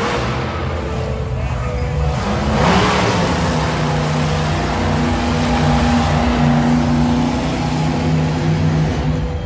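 Bigfoot monster truck's engine revving hard, then running at a steady, sustained note.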